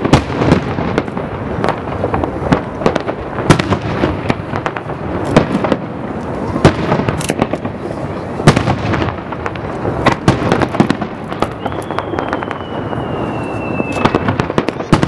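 Aerial fireworks shells bursting in quick succession: a dense, uneven run of bangs over a continuous rumble. Near the end a thin whistle slides down in pitch for about two seconds.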